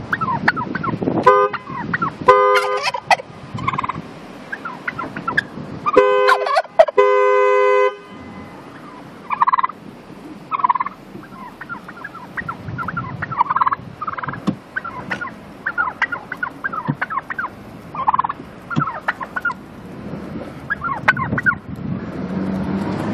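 A male wild turkey gobbling again and again at close range. A car horn toots several times early on, with one longer, louder blast about seven seconds in.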